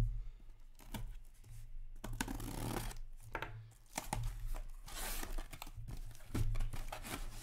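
A sealed cardboard shipping case being cut open: a blade slitting the packing tape and the flaps pulled apart, giving a string of irregular tearing and scraping noises.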